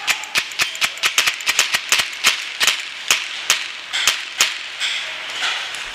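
Paintball markers firing in quick succession: a fast string of sharp pops, about five a second, that thins out and stops about four and a half seconds in.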